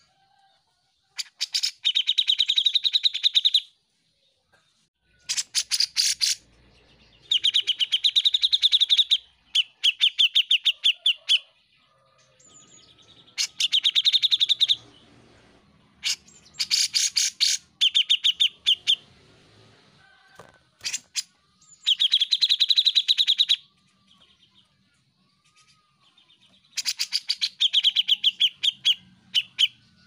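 Grey-cheeked bulbul (cucak jenggot) singing loud phrases of rapid, rattling notes, each a second or two long, repeated about eight times with short pauses between.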